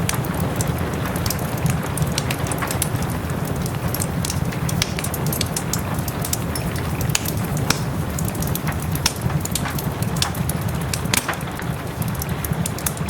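Wood fire crackling, with irregular sharp pops several times a second, over a steady hiss of soft rain.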